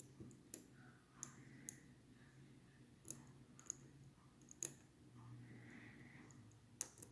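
Lock pick and tension tool working the pins of a Schlage Primus Everest high-security lock cylinder: faint, irregular metallic clicks, about eight over several seconds.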